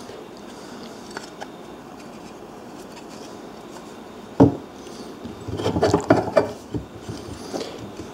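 Briggs & Stratton starter motor parts being handled by hand as the motor is taken apart. There is a single sharp knock about four and a half seconds in, then a couple of seconds of scraping and clicking as the housing and armature are worked.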